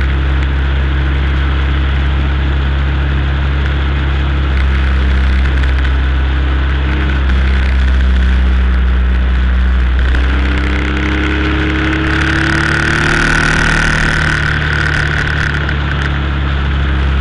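Triumph motorcycle engine running steadily at road speed, heard from the bike itself, with wind and road hiss over it. About two-thirds of the way through a rising tone comes in briefly.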